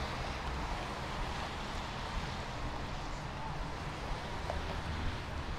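Steady city street ambience: a constant hiss and low rumble of traffic.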